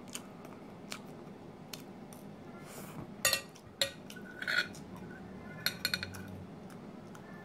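Metal knife and fork clinking and scraping against a ceramic plate while cutting through pancakes, in scattered sharp clicks. The loudest come about three seconds in and in a quick cluster around six seconds.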